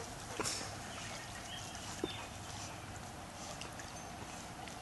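Golden retriever swimming in an above-ground pool, its paddling faint and quiet, with a couple of soft ticks about half a second and two seconds in.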